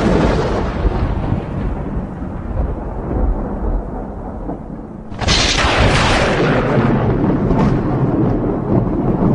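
Thunder: a rumble fading away, then a second loud crack of thunder about five seconds in that rolls on into a long, steady rumble.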